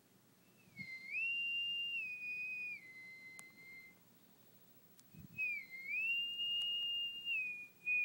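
A person whistling a cat-call tune twice. Each phrase starts on a low note, slides up to a higher held note, then steps back down to the starting note. This is the whistle the cat is trained to come to.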